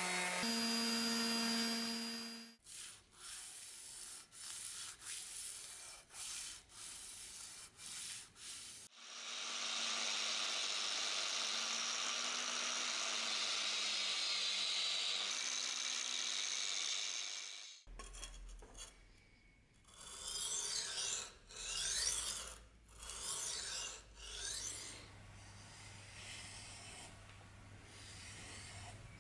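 An electric disc sander runs briefly, then stops. Next come a dozen or so short hand-sanding strokes on a steel knife blade, and about nine seconds of steady machine sanding with a hiss over a low hum. Near the end there are more irregular rubbing strokes of a sanding block on the blade.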